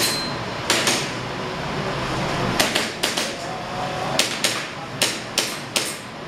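Airsoft pistol firing double taps: about ten sharp pops in quick pairs, with pauses of a second or more between the pairs.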